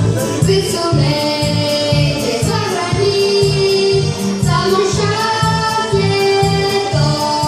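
Pop dance song with singing over a steady, pulsing bass beat.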